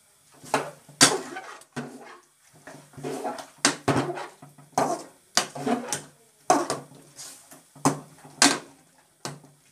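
Metal ladle scraping and clanking against a metal karahi as chicken pieces are stirred, about a dozen irregularly spaced knocks and scrapes.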